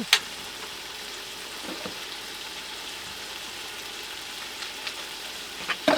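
Chicken thigh pieces searing in a hot pan, a steady sizzle. There is a sharp knock right at the start and a louder clatter just before the end.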